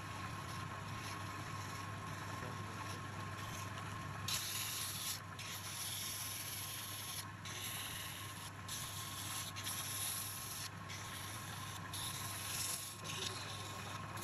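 Wood lathe's motor humming steadily while sandpaper is held against the spinning wooden spindle. From about four seconds in, a high hiss of sanding comes in, broken by several brief pauses as the paper is lifted and pressed again.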